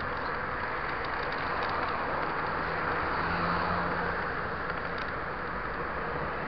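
Steady rushing noise of a mountain-bike ride: wind on the microphone and tyres rolling over the dirt, with a few faint ticks.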